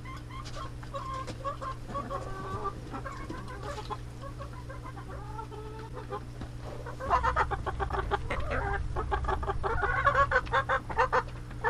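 Domestic hens clucking and calling in short pitched notes. From about seven seconds in the clucking becomes louder and busier.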